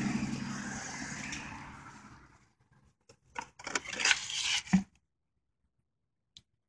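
A car engine's steady idle hum fades out over the first two seconds. After a brief silence comes a short cluster of crinkles and knocks as a used ignition distributor is set down into a cardboard box with its plastic wrapping, ending in a dull thump.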